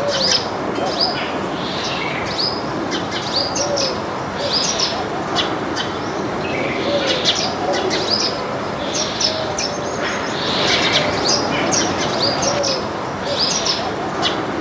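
A flock of small birds chirping continuously, many short high chirps overlapping, with a faint low falling note recurring every second or two underneath.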